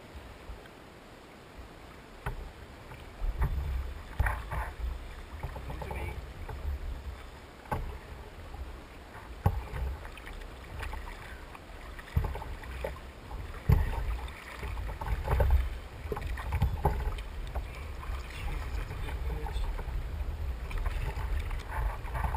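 Wind buffeting the microphone over water splashing against a plastic kayak hull, with scattered sharp knocks and splashes.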